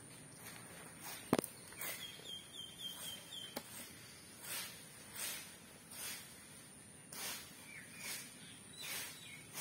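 Broom sweeping a yard, a swish every second or so, with a single sharp click about a second in and a bird's short run of chirps soon after.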